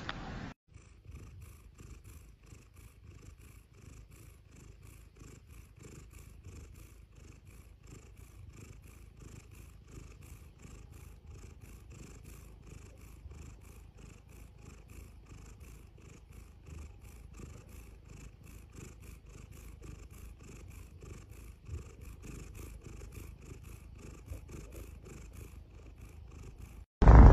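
Domestic tabby cat purring steadily and softly, the purr pulsing about twice a second as it breathes in and out.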